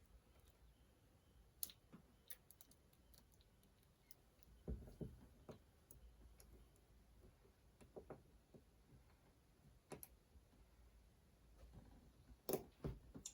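Sparse light clicks and metallic taps as small transmission parts (gears, washers, circlips) are handled and fitted onto a shaft, with a few duller knocks about five seconds in and again near the end.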